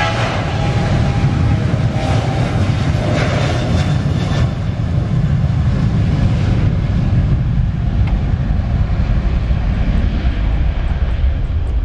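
Boeing 737-900ER's twin CFM56-7B jet engines at high thrust as the airliner rolls down the runway past and away: a loud, steady low rumble, with a whine from the engine fans that fades after the first few seconds.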